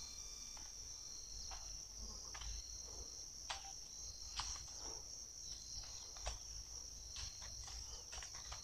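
Insects chirring in a steady, high-pitched drone, with scattered faint clicks at irregular moments.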